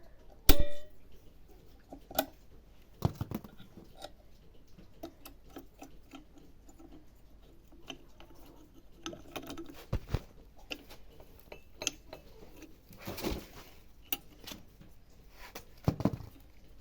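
Scattered clicks, clinks and knocks of small metal parts and hand tools being handled, with a sharp knock about half a second in and some rustling later on.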